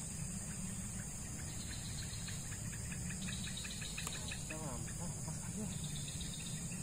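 Insects chirping: a steady high drone with rapid pulsed chirps through the middle, over a constant low rumble.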